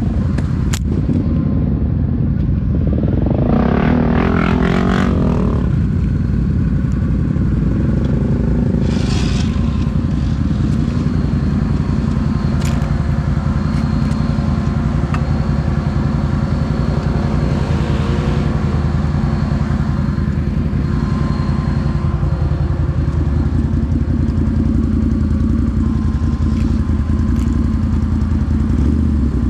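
Can-Am 1000cc off-road vehicle engine running steadily on a trail ride, with clattering and scraping of the machine over rough ground and a brief louder surge about four seconds in.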